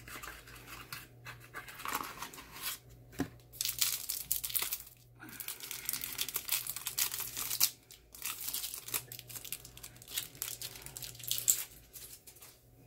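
Clear plastic packaging of a set of makeup brushes crinkling as it is handled and pulled open, in crackly stretches with short pauses.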